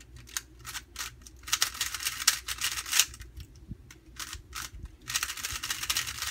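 GAN Air 3x3 speedcube being turned by hand: its plastic layers clicking and clacking in quick bursts, with short pauses between runs of turns.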